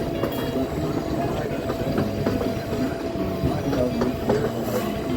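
Passenger train running along the rails: a steady rumble with scattered wheel clicks and a thin steady whine.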